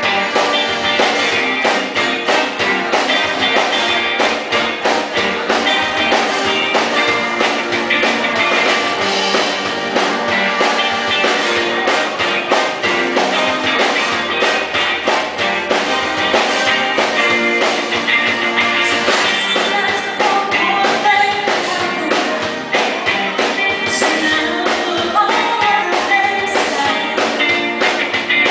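Live rock band playing: a woman singing into a microphone over electric guitar and drums.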